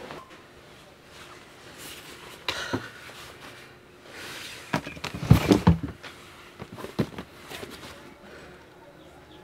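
Handling noises at a plastic chest of drawers: a drawer pulled open and its contents rummaged as a container is taken out, with a few soft knocks, then a louder clatter about five seconds in and a sharp click near the end.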